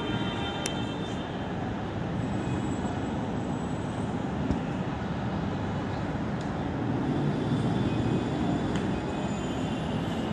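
Steady rumble of an MRT train moving on the line, with faint high metallic squealing tones at the start and again from about seven seconds in, where it grows a little louder.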